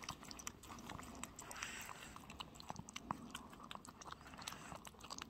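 Small dog eating chicken porridge from a bowl, faintly: quick wet chewing and lapping with many small irregular clicks.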